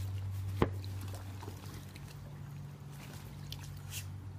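Swimming pool water trickling and lapping over a steady low hum, with one sharp click about half a second in.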